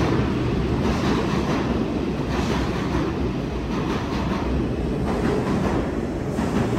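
Bombardier R62A subway train rolling along the rails and slowing to a stop: a steady rail noise with scattered wheel clicks, growing slightly quieter after the first second.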